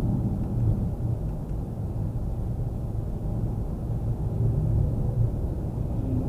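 Steady low road and tyre rumble inside a Mitsubishi Xpander's cabin while driving, with no high wind whistle over it.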